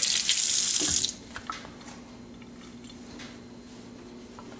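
Kitchen sink tap running and splashing, shut off about a second in; afterwards only a few faint handling clicks over a low steady hum.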